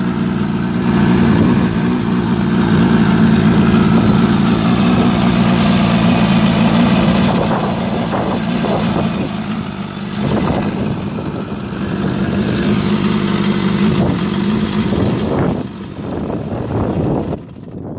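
1959 Nimbus motorcycle's air-cooled inline-four engine running loud and steady just after it has been got going again, its level dipping and picking up a couple of times. It stops shortly before the end.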